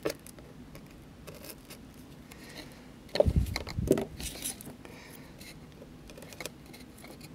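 Faint scratching and scraping of a No. 11 hobby-knife blade cutting through cork roadbed and ballast, with scattered small clicks. A few dull knocks come about three seconds in.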